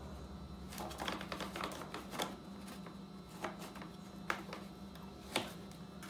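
Irregular light metallic clicks and taps of hands and tools working on a mini bike's chain and sprocket.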